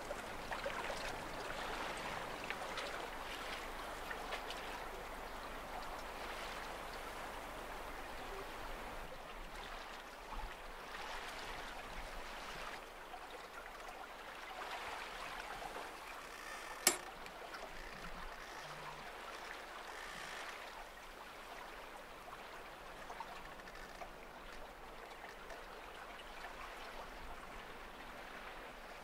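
Water swishing and splashing along the hull of a small sailing yacht under way, in uneven surges. One sharp click a bit past halfway.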